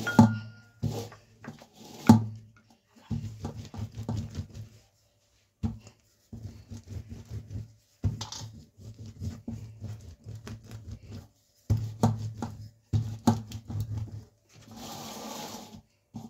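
Rolling pin being rolled back and forth over freshly spread jaggery-and-nut brittle, a string of low rumbling strokes with sharp knocks, the loudest at the start and about two seconds in. There is a short hiss near the end.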